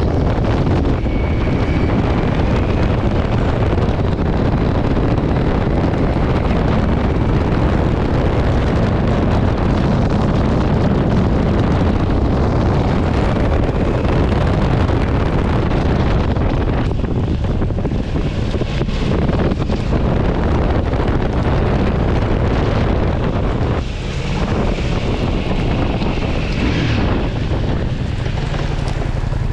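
Heavy wind rushing over the microphone of a camera on a moving motorcycle, with the engine and road noise running underneath.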